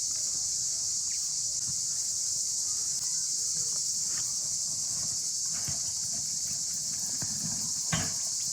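A steady high-pitched insect chorus of forest crickets or cicadas, with scattered light knocks and taps over it and one louder knock near the end.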